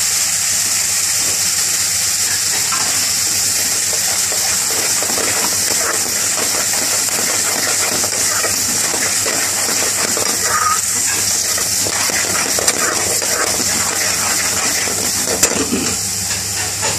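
Curry sauce boiling and sizzling hard in a metal pan with a steady hiss, while a metal spoon stirs and scrapes through it, clicking and clinking against the pan now and then.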